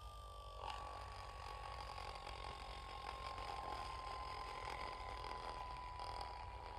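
Cartoon UFO whistle sound effect: a single thin whistle tone, faint, gliding slowly down in pitch, over a low hum.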